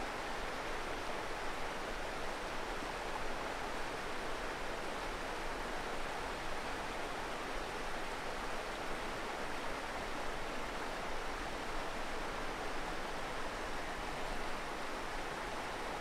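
Steady rush of a small river running over a stony bed.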